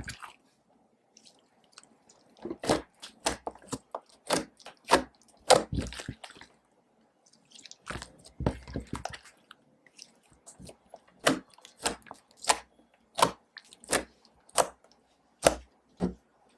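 Glue slime being squeezed and stretched by hand, giving off sharp wet clicks and pops about once or twice a second, with two short pauses.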